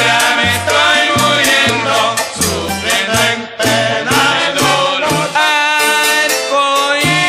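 Salsa music recording: percussion and bass notes under a melodic line, with long held notes in the last couple of seconds.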